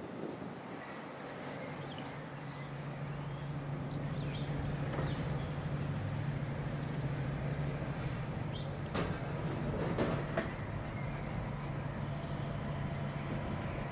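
A train passing on the line: a steady low drone that builds over the first few seconds and then holds, with a few sharp metallic clanks about nine and ten seconds in.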